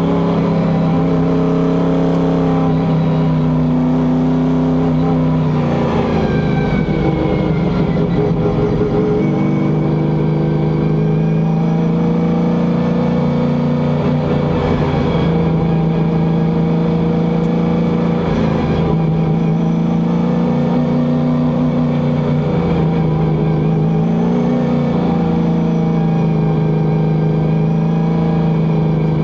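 A stock car's engine heard from inside the cockpit, running hard at racing speed. Its pitch dips and climbs again a few times as the driver lifts and gets back on the throttle.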